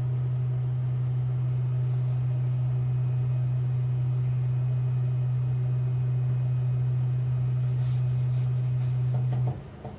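Tormach 440 CNC mill's Z-axis drive giving a steady low hum as the spindle head is jogged down toward the workpiece. The hum cuts out near the end, as the jog stops.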